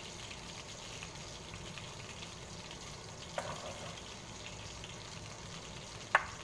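Butter sizzling and crackling steadily in a hot frying pan. A short clink about halfway through and a sharp knock near the end, like a utensil against the pan.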